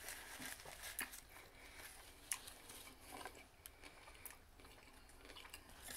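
Faint close-up chewing of a mouthful of food, with a few soft, wet mouth clicks.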